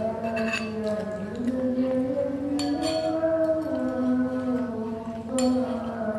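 Background music with slow, held melodic notes. A couple of light clinks of a fork against a bowl come through, about two and a half and five and a half seconds in.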